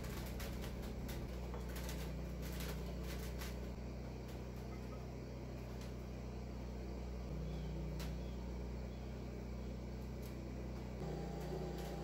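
Workshop room tone with a steady low hum, broken by light metallic clicks and taps from a micrometer being set on the journals of a bare crankshaft. The clicks come several together in the first few seconds, then singly near the middle.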